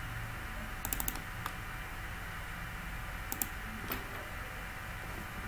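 A few sharp clicks from a computer mouse and keys: a quick cluster about a second in, a single click, then a pair and one more around three to four seconds in, over a steady low hum.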